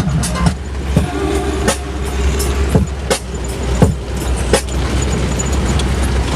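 Steady low rumble of a moving vehicle heard from inside, with irregular sharp knocks and rattles every half second to a second.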